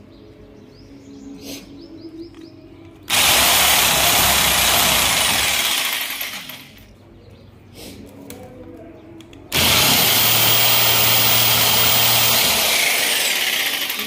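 Electric jigsaw cutting into the willow blade of a cricket bat, in two runs of a few seconds each. Each run starts suddenly at full speed, with a loud rasping of the blade through the wood over the motor's hum.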